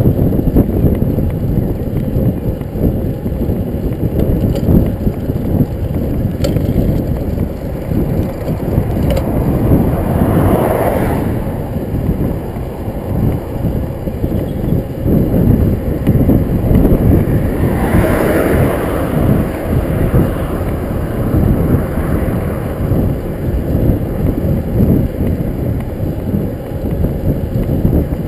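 Wind buffeting a handlebar-mounted camera microphone on a moving road bike, a loud steady rumble. The noise swells briefly twice, about ten and eighteen seconds in.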